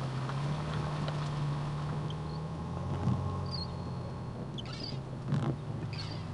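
Toyota FJ Cruiser's 4.0-litre V6 running at low speed, heard from inside the cab on a muddy dirt track. There are two sharp knocks in the second half, and a few short high chirps.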